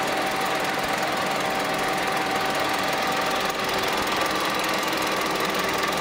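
35 mm cinema projector running with its lamphouse cooling fan on: a steady mechanical whir with a steady whine over it.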